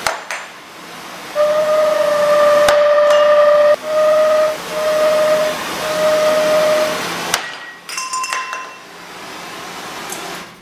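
Hanging glass tubes heated from below by handheld gas torches, sounding as flame-driven singing tubes. A steady hollow tone is held for about two seconds, then three shorter notes at the same pitch each cut off sharply. A few sharp clicks are heard over a background hiss.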